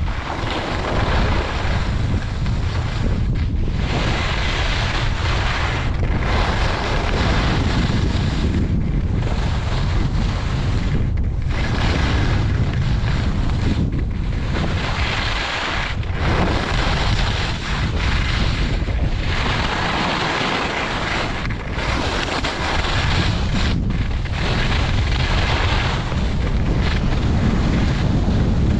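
Wind buffeting the GoPro's microphone in a low, steady rumble, with skis scraping over groomed snow; the hissing scrape swells and fades about every two to three seconds as the skier turns.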